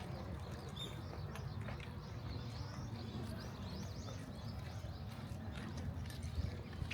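Outdoor ambience while walking: a steady low rumble with soft footsteps, and many short high chirps of small birds, thickest in the second half.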